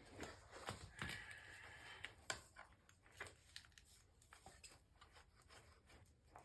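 Faint scattered clicks and scuffs of a dirt bike tire being levered over its wheel rim by hand, with tire levers and plastic rim protectors knocking against the rim and rubber.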